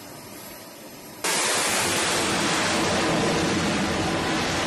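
Jet engine roar on an aircraft carrier's flight deck, from F/A-18 fighters launching. A steady, loud rushing noise cuts in abruptly about a second in, after a faint hiss.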